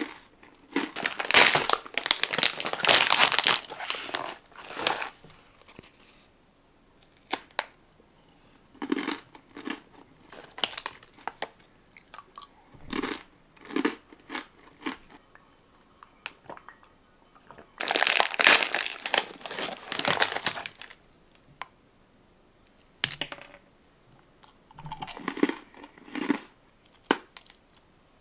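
Plastic snack wrappers crinkling in two long stretches, about a second in and again around eighteen seconds in, between separate crisp crunches of someone biting and chewing thin, crispy almond cookies.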